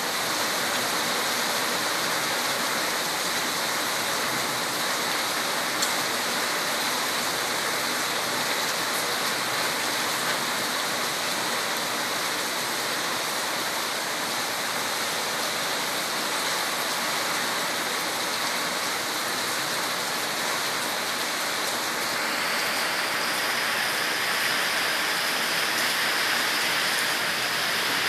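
Steady rain falling, an even hiss of water that cuts in suddenly at the start and shifts slightly in tone about two-thirds of the way through.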